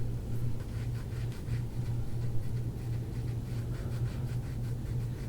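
Repeated soft, scratchy rubbing of hands and elbow working over a patient's back during soft-tissue massage, over a steady low hum.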